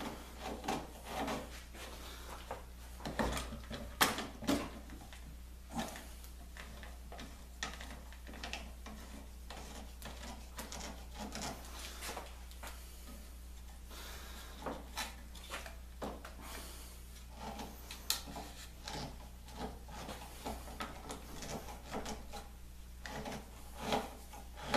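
Scattered knocks, clicks and rubbing of wood pieces and clamps being handled during a glue-up in a laminating form, over a steady low hum.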